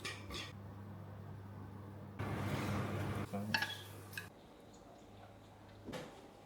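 Kitchen dishes and cutlery clinking in a few short touches, with a brief rushing noise about two seconds in that is the loudest sound. A steady low hum cuts off about four seconds in.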